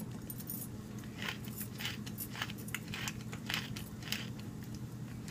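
Wooden pepper mill being twisted to grind peppercorns: a run of irregular, crunchy clicks over a low steady hum.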